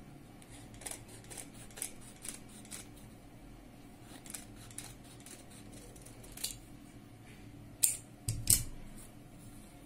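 Large tailor's shears snipping through stiff buckram: a run of short, crisp cuts. Near the end come two louder sharp clacks with a low thump.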